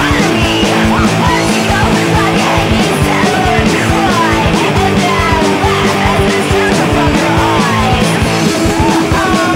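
Studio recording of a fast punk rock song by a guitar-and-drums duo: distorted electric guitar over steady, rapid drum hits.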